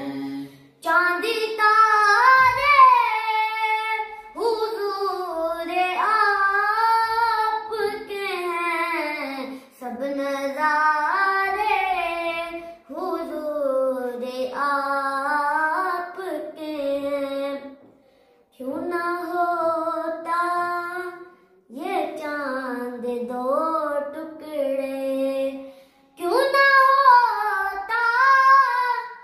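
A young male voice singing a naat unaccompanied, in ornamented melodic phrases of a few seconds each, with short breaths between them.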